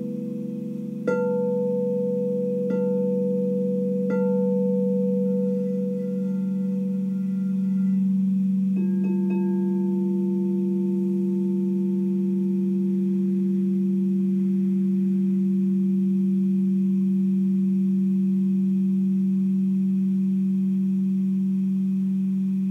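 Frosted quartz crystal singing bowls struck with a mallet: three strikes in the first four seconds, then two quick strikes on another bowl about nine seconds in. The bowls' low, pure tones keep ringing steadily afterwards.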